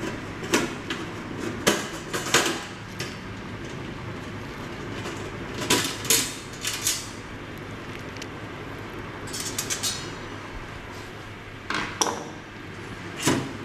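Screwdriver turning out the bolts in the stainless steel top cover of a Ferratti Ferro FCM 3012 espresso machine: scattered metallic clicks, taps and clinks of the tool, the screws and the steel panel, with a quick run of small clicks about ten seconds in.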